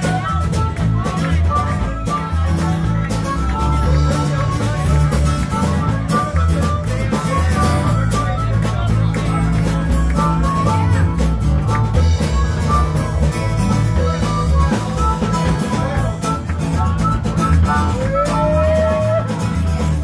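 Live band playing an instrumental passage: guitars over a bass line and drum kit, with a rising bent note near the end.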